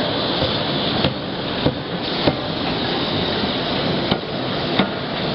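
A 31.5 kJ CNC hydraulic die forging hammer striking, a series of sharp blows about half a second apart with a pause near the middle, over the steady noise of the forging line.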